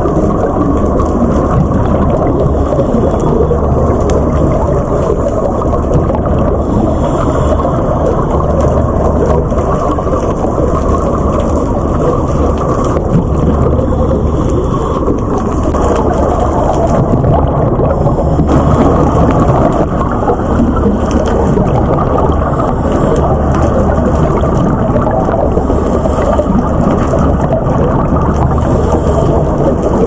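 Underwater noise recorded through a camera's waterproof housing: a dense, muffled rumble and crackle, with the lowest rumble swelling and fading every second or two.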